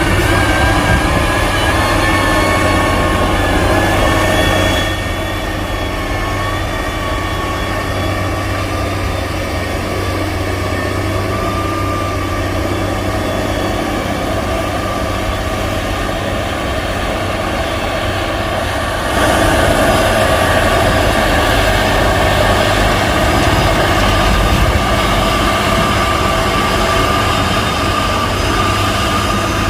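Heavy diesel engine of a motor grader running steadily under load, a deep rumble with a pitched engine drone over it. The sound drops abruptly about five seconds in and comes back louder about nineteen seconds in.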